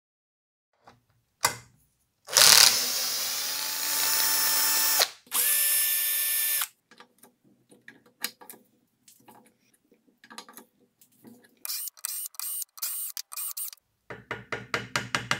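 Power driver with a socket on an extension spinning out the bolts of an OMC stern drive lower unit's bearing retainer: two runs of a few seconds each with a steady whine, the first speeding up partway through. Then scattered clicks, several short spurts, and a quick run of clicks near the end.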